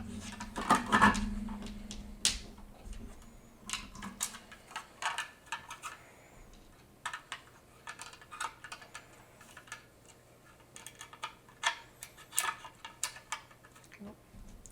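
Scattered light clicks, taps and small rattles of a screw and a nylon nut being handled against a 3D-printed plastic housing, some coming in quick little clusters.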